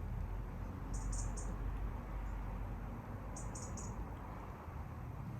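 Short high chirps from a small animal, in quick groups of three, twice, over a steady low rumble.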